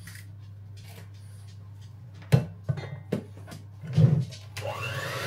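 A few sharp knocks and clunks on a ceramic mixing bowl, then a Kenwood electric hand whisk switches on near the end, its motor whine rising as it speeds up with the beaters in the creamed butter and sugar to beat in an egg.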